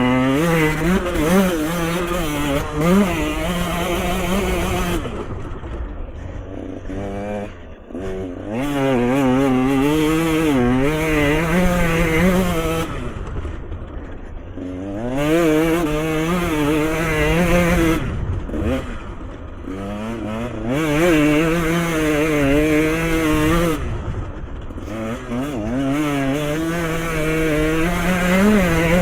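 Off-road motorcycle engine revving up and down as the rider rolls on and off the throttle through trail corners, dropping off to a lower pitch several times before pulling hard again.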